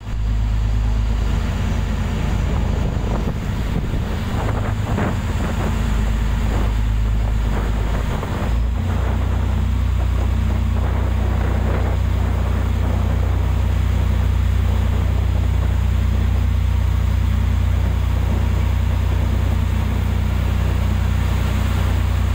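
A boat's engine running steadily under way, heard on board, over wind and water noise. The engine's hum changes about nine seconds in, then holds steady.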